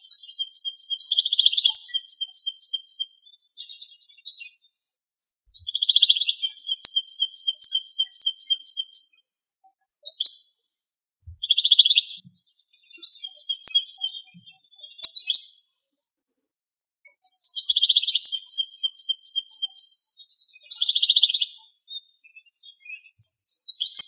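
Male European goldfinch singing: phrases of fast, high repeated twittering notes, each lasting one to four seconds, broken by short pauses. The recording is heavily noise-reduced to take out strong wind, so it is dead silent between phrases.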